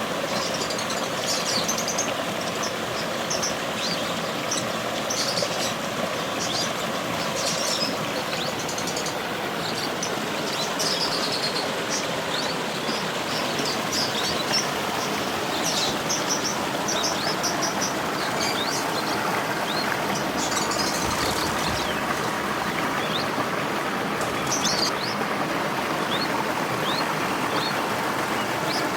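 A creek running with a steady rushing flow, with small birds giving short, high chirps on and off throughout.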